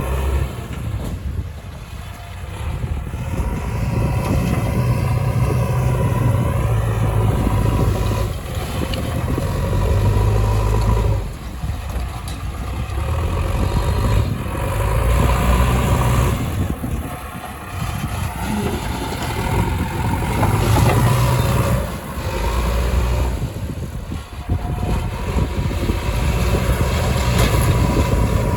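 Heavy diesel machinery engines running under load, swelling louder and easing off again every few seconds.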